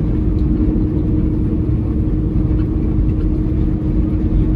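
Peterbilt 389 semi truck heard from inside its cab at highway speed: a steady, even drone of engine and road noise with a constant hum running through it.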